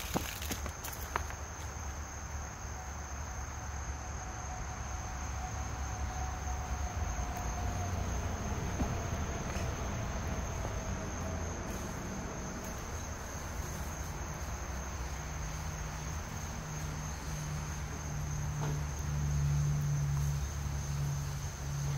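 Steady, unbroken high-pitched chorus of insects in summer woods, with a low hum underneath that grows louder in the last few seconds.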